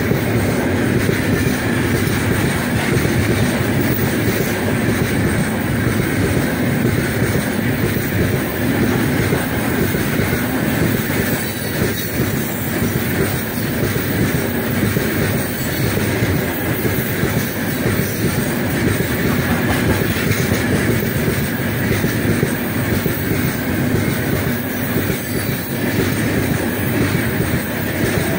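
Open-top gondola wagons of a heavy freight train rolling past close by: a loud, steady rumble of wheels on the rails with continuous clatter over the rail joints.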